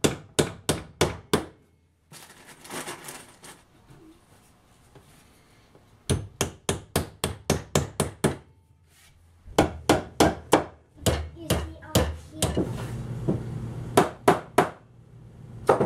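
Hammer driving nails into the finger-jointed corners of a wooden beehive medium super: runs of quick, sharp strikes, about four or five a second, broken by pauses.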